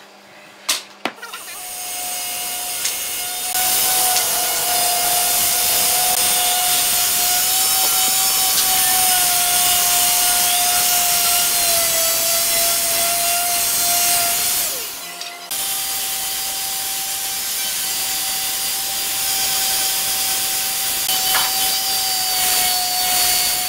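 Electric finishing sander running on a hardwood stair tread: a steady motor whine over the hiss of sandpaper on wood. It starts about a second and a half in, after a few light knocks, and dips briefly past the middle before running on.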